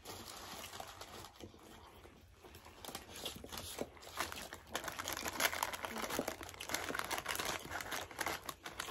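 Paper fast-food burger wrappers crinkling in the hands as the burgers are held and eaten, with scattered crackles that get busier from about three seconds in.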